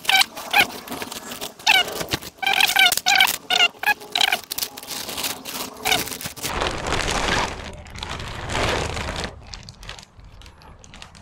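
Bubble wrap and plastic sheeting rustling and crinkling as they are pulled off a boxed compound bow. Through the first few seconds there are many short squeaks from plastic rubbing, then a longer stretch of steady rustling that fades near the end.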